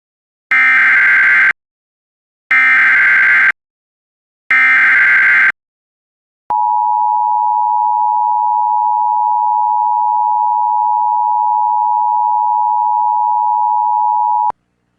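Emergency Alert System alert opening: three one-second bursts of SAME header data tones, two seconds apart, encoding a flash flood warning, then about a second later a steady attention tone that holds for about eight seconds before cutting off.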